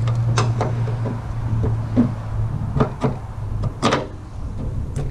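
Several short knocks and clicks of small parts being handled, over a steady low hum that fades out near the end.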